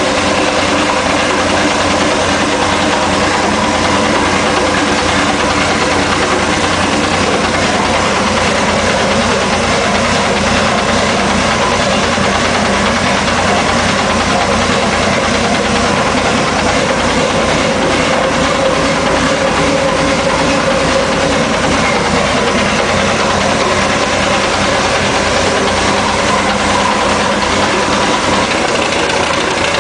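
Hino K13C inline six-cylinder turbocharged engine, converted from diesel to run solely on CNG with spark ignition, running steadily at a constant speed with a dense, even firing pulse.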